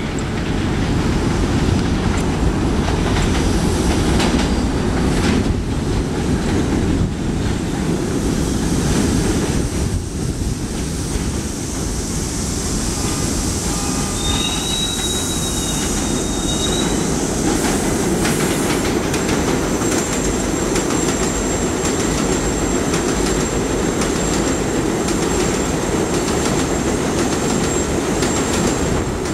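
New York City Subway 7 line trains of R62A cars running through an elevated station, a loud steady rumble of wheels on rail with clicking over the rail joints. A brief high wheel squeal comes a little past the middle, and a thin high whine carries on through the last third.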